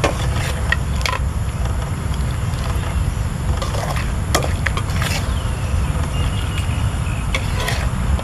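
Metal spatula scraping and clacking against a steel wok as fried crabs are scooped out, a handful of sharp clatters over a steady low rumble.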